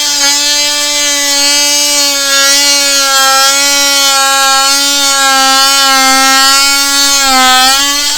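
DeWalt 20V MAX XR brushless oscillating multi-tool running at its top speed and cutting into a deck board: a loud, steady high buzz whose pitch sags a little under load near the end before it stops abruptly.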